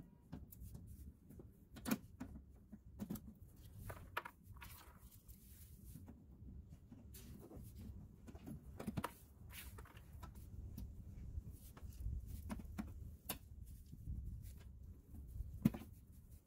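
Scattered small clicks and taps of plastic push-pin bumper clips being pried out with a clip removal tool, a few seconds apart, the sharpest near the end, over a low steady rumble.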